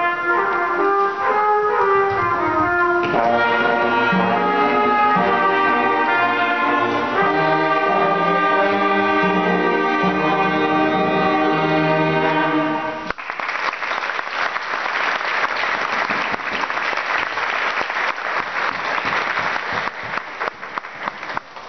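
School concert band of woodwind and brass instruments playing sustained chords that cut off together on a final note a little past halfway, followed by audience applause.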